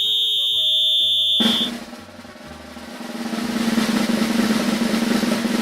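A steady, high whistle blast lasting under two seconds, then a snare drum roll that builds steadily in loudness.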